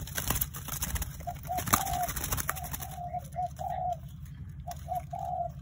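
Caged zebra dove cooing: three phrases of a few short staccato notes running into longer rolling coos, all at much the same pitch. A low steady hum lies underneath, and a few sharp clicks come in the first two seconds.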